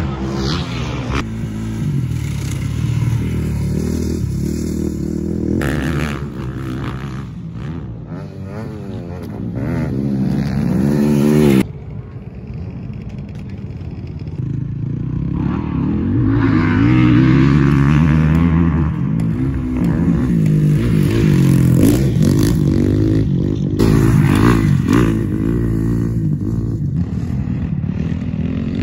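Motocross bikes running on a dirt track, engines revving up and down as riders accelerate and back off. The sound breaks off abruptly about twelve seconds in, then builds again.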